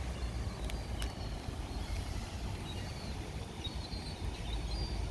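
Faint, short, high-pitched bird chirps from about two seconds in, over a steady low outdoor rumble, with two sharp clicks about a second in.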